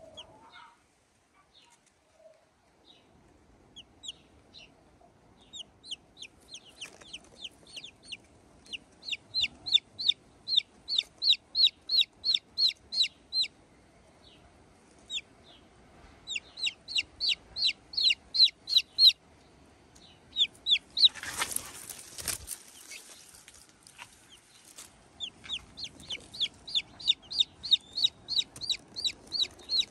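Chick peeping: bouts of loud, high, falling peeps, about three a second, with pauses between bouts. A brief rush of noise about two-thirds of the way through.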